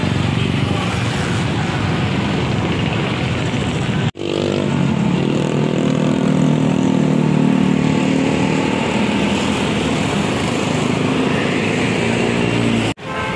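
Motorcycle engines of a passing convoy of riders. After a sudden break about four seconds in, a large bus's engine runs with a steady note as the bus rolls past.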